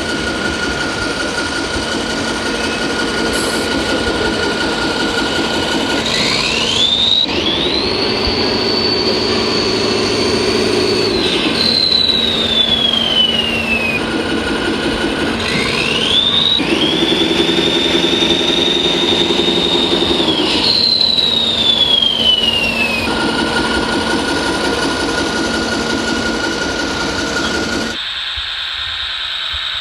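Electric motors of radio-controlled construction models running with a steady hum, over which a high motor whine twice winds up, holds level for several seconds and winds back down. Near the end the hum cuts off.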